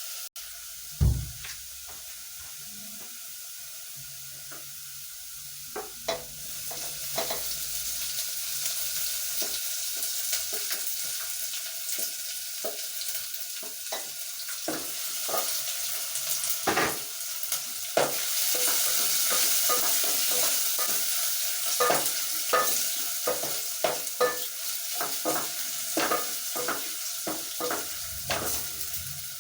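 Golden-browning onions frying in oil in a sufuria (metal cooking pot), with ginger and garlic just added, sizzling steadily while a spoon stirs and knocks against the pot many times. One heavier knock about a second in; the sizzle gets louder about six seconds in.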